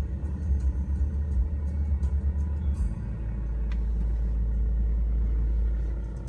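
Steady low rumble inside a moving vehicle's cabin, growing heavier and smoother about three seconds in.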